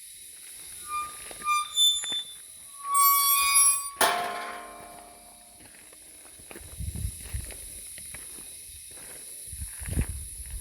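Whistled, squeaky bush bird calls: a few short notes, then a louder shrill call about three seconds in that ends in a sharp crack and falls away. Later come low thumps of footsteps on the trail.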